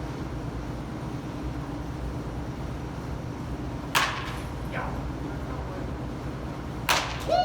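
Baseball bat hitting balls during one-handed swings: two sharp cracks about three seconds apart, the first followed by a fainter knock under a second later.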